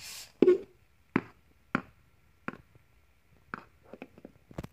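A hard plastic toy horse figure tapped along a wooden floor like hoofbeats: about seven sharp, unevenly spaced knocks, after a brief rustle at the start.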